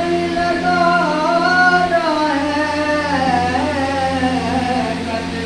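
A solo voice singing slowly in long held notes that waver and glide up and down, over a steady low hum.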